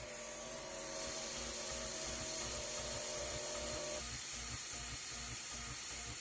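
CNC-converted Optimum MH28V milling machine's spindle turning an end mill at 4000 rpm and cutting steel, with a steady hiss from the mist coolant spray. The machine tone changes about four seconds in as the 1.2 mm width-of-cut pass begins, and the cut runs smoothly without chatter.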